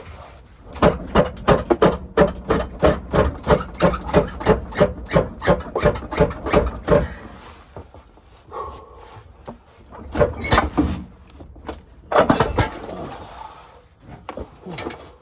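Rapid series of hard hammer blows on metal, about three or four a second for some six seconds, then two shorter flurries of blows, working a stubborn GM 4L60E transmission part loose.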